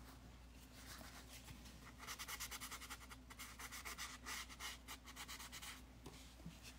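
A paper towel rubbing quickly back and forth over the wet oil paint of a small painting, faint rapid scrubbing strokes starting about two seconds in and stopping near the end. The paint is being wiped back to lighten the background.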